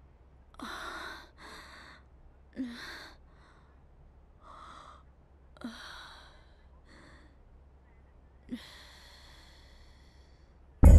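A person breathing heavily in about seven audible, ragged breaths and sighs, several beginning with a small catch in the voice. Loud music cuts in suddenly at the very end.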